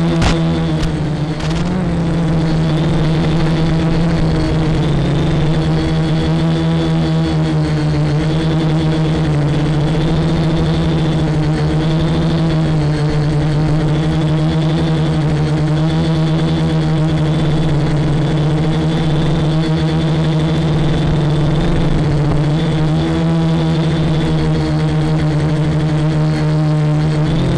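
Quadcopter motors and propellers running in flight, a steady buzzing hum whose pitch wavers up and down as the throttle changes.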